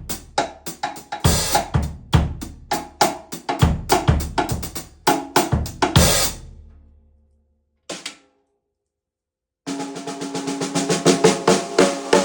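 Drum kit groove built around a Joyful Noise 14x6.5 Knight Hawk Ferromangan steel snare, with bass drum, hi-hat and two cymbal crashes. The playing stops and rings out to silence about seven seconds in, with one short hit, then quick, ringing snare strokes start up near the end.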